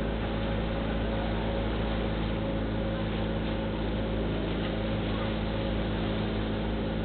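Outrigger motor boat (bangka) engine running steadily, under a constant rush of wind and water against the hull.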